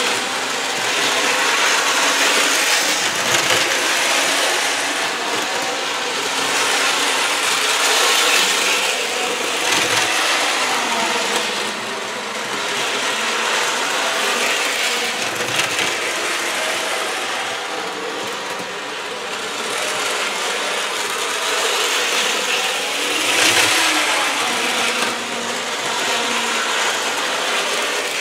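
N gauge model diesel locomotive running around its track loop: a steady mechanical whir of its small motor and gearing with wheels running over the rail joints. The sound swells and fades several times as the engine comes near and moves away.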